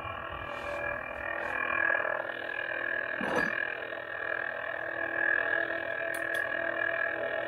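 Lightsaber sound board (Golden Harvest v3) playing its steady electric hum through a small 20 mm speaker, with a short burst of sound about three seconds in.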